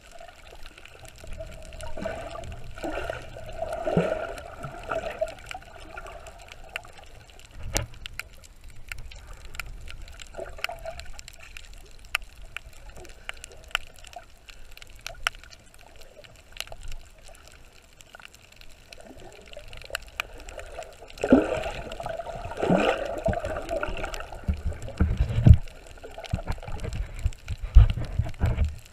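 Water heard underwater, muffled and gurgling, with bursts of bubbling a few seconds in and again about twenty seconds in, and a few low thumps near the end.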